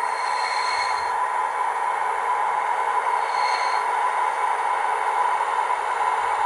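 HO-scale model of a CFR EA 060 electric locomotive with a ZIMO sound decoder, its small speaker playing a steady electric-locomotive running sound as the model pulls up at the platform and stops. Two brief high tones come through, one near the start and one about three and a half seconds in.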